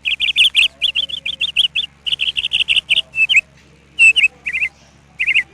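Pet budgerigars chirping: quick runs of short, high chirps several per second, with brief pauses a little past the middle and near the end.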